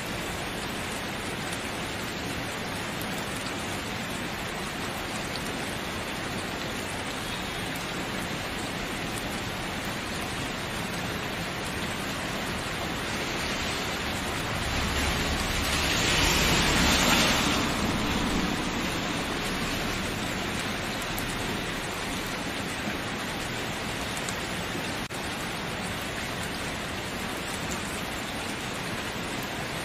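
Steady rain falling, an even hiss, that swells louder for a few seconds about halfway through, with a low rumble under the peak.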